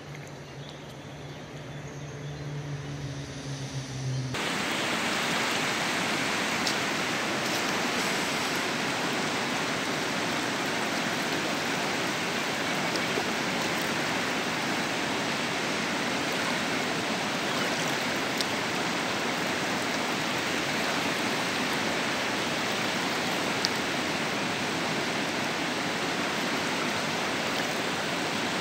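Shallow, fast river water rushing over gravel and stones in a steady, even wash. For the first four seconds it is fainter under a low steady hum, then it comes in loud at once and stays level.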